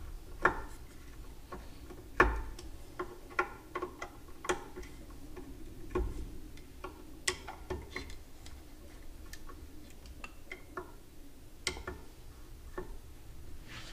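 Hand screwdriver driving and tightening screws that hold stepper drives to a metal heatsink plate: irregular sharp clicks and small metal knocks, the loudest about two seconds in.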